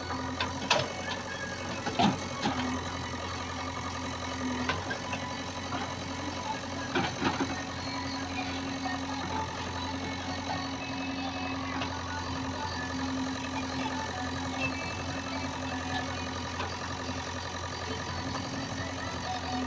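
JCB digger's diesel engine running steadily, with a few short metallic knocks and clanks from the machine at work.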